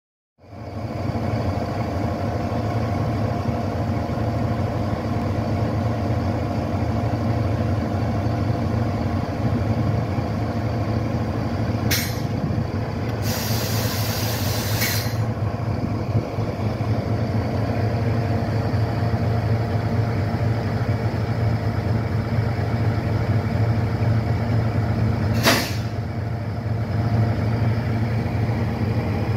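Freightliner Class 70 diesel locomotive's V16 engine running steadily with a deep, even hum. Compressed air hisses briefly about twelve seconds in, then for about two seconds just after, and once more briefly near twenty-five seconds.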